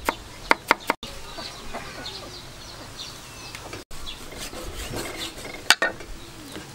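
A cleaver chopping on a wooden chopping block in quick knocks, then chickens clucking in the background with one sharp knock of the cleaver on the block near the end.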